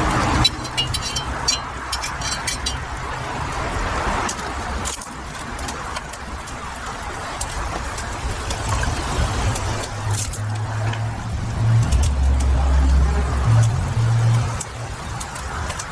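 Water poured in a stream onto rice in a cast-iron kazan, stopping about half a second in, with light ticking for a couple of seconds after. A steady low rumble runs underneath and grows louder for a few seconds near the end.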